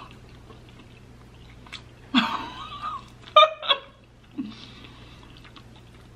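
A person's mouth sounds while eating hot pasta: quiet chewing, a drawn-out hummed sound with a bending pitch about two seconds in, then two short, sharp mouth noises just after, the loudest moments.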